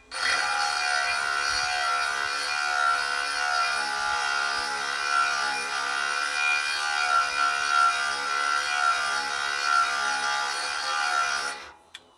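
Small electric grinder running and grinding a tooth of a Lucas Mill swing-blade saw: a steady whine with a grinding hiss that stops sharply near the end.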